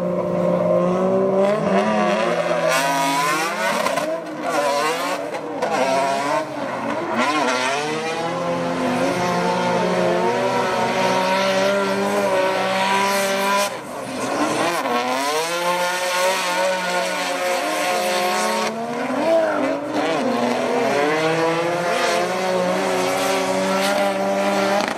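Drift cars' engines at high revs, their pitch swinging up and down with the throttle and holding steady at times, with tyre squeal.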